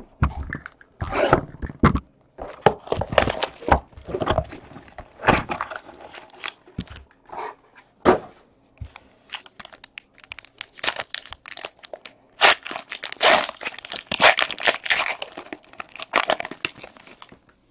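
A cardboard hobby box of trading cards opened and its sealed packs handled, then a foil card pack wrapper torn open and crinkled. It is a run of sharp rustling and tearing noises, thickest and loudest in the last few seconds.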